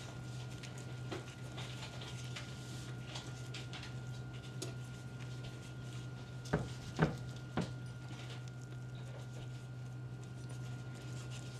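Faint taps and soft clicks of hands crumbling and pressing potato salad onto a pizza in a cast-iron skillet, with three sharper clicks a little past the middle, over a steady low hum.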